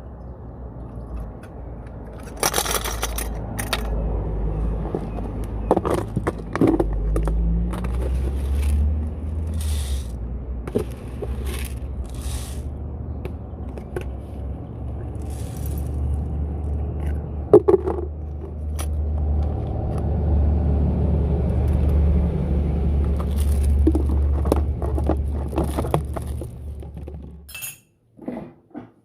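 Dishes and glassware clinking, knocking and scraping over a steady low rumble, stopping abruptly near the end.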